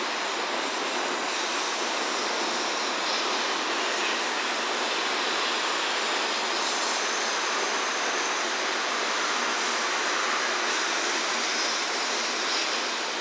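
JNR 443-series KuMoYa 443 electric test car running slowly, heard from a distance as a steady, even rushing noise without distinct beats.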